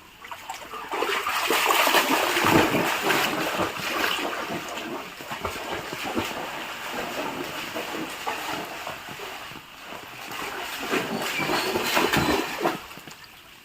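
A pet splashing about in rainwater, in two loud bouts: one from about a second in to five seconds, and another near the end.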